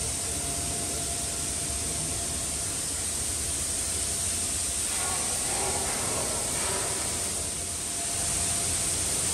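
Steady, even hiss of shipyard background noise inside a ship's hull under construction, with no distinct knocks or events.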